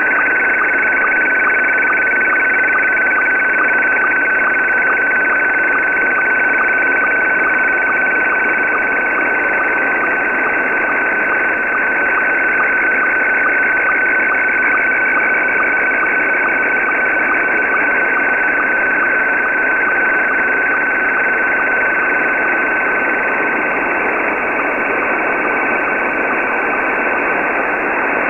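Slow-scan television (SSTV) image signal in Scottie 1 mode, received in lower sideband on shortwave and weak under heavy static hiss. It is a steady warbling tone, with fainter tones above it and faint regular ticks as each picture line is sent.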